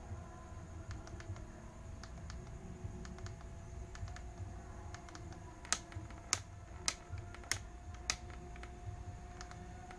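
Clicking of a Yamaha Mio Sporty's modified left handlebar switch, a tactile push switch for the passing light being pressed over and over. Scattered faint clicks come first, then, from about halfway through, five sharper clicks a little over half a second apart.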